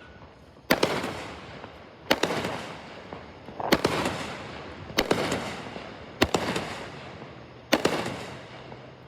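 Fireworks going off: six sharp bangs about one to one and a half seconds apart, each trailing off in a rolling echo.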